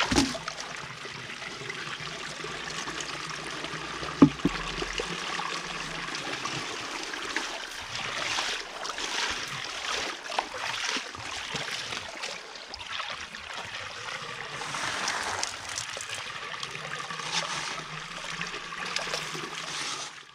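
Water running and swirling in a homemade hydrocyclone concentrator, with splashing from a bucket being poured in at the start and from a hand stirring the vortex. There is one sharp knock about four seconds in.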